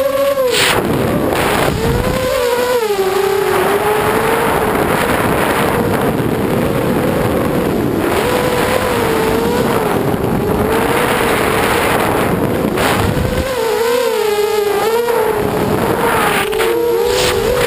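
FPV drone's electric motors and propellers heard from its onboard camera: a steady whine that wavers up and down in pitch with the throttle, over a rushing of air across the microphone.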